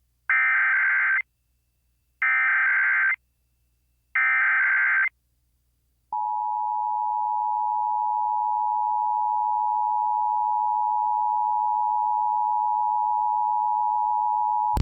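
Emergency Alert System header: three bursts of SAME data tones, each about a second long with a second's gap between them. About six seconds in, the steady two-tone EAS attention signal (853 and 960 Hz) starts and holds. Together they open a required monthly test alert.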